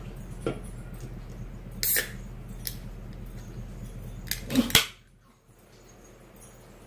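Cutlery and dishes clinking: a few sharp clicks and clatters, the loudest cluster about four and a half seconds in. Right after it, a steady background hum stops abruptly.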